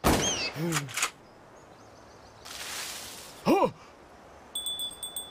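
A hunting rifle fires with a sudden loud bang, followed at once by a short gliding squawk-like cry. About three and a half seconds in comes a brief loud yelp, and near the end a high ringing tone with light ticks.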